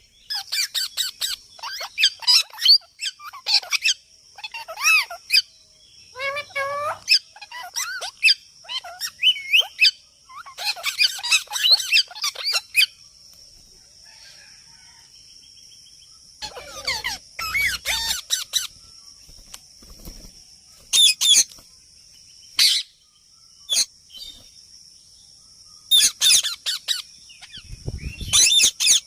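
Birds chirping and calling in bursts of rapid, quickly changing notes, separated by short pauses, over a steady high-pitched tone.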